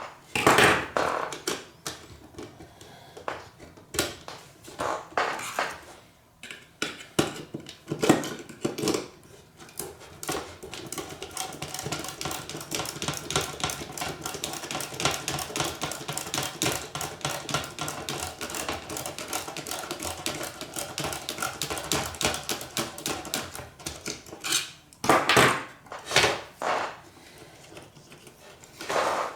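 Small metal hand tool clicking and scraping against a nut and terminal post as the nut is worked loose, with scattered sharp knocks and a long stretch of rapid clicking in the middle.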